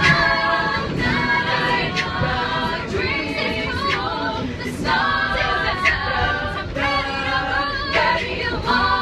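A cappella vocal group singing in close harmony, several voices holding and changing chords together, over a steady low rumble.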